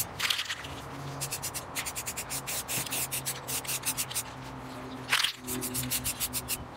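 Aerosol spray paint can in use: short hissing sprays of tan paint, broken up by quick runs of rattling, with one louder burst of spray just after five seconds.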